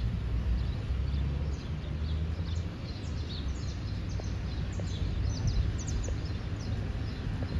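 Many birds chirping in the trees, short high calls thickest through the middle, over a steady low rumble.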